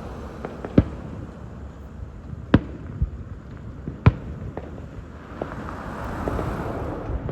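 Aerial firework shells bursting: a string of sharp bangs at uneven intervals, the loudest about a second, two and a half and four seconds in, with fainter pops between. A rising hiss swells up near the end.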